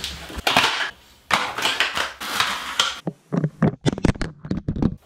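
Rustling and handling noise close to the microphone, then a quick run of sharp clicks and knocks in the last two seconds.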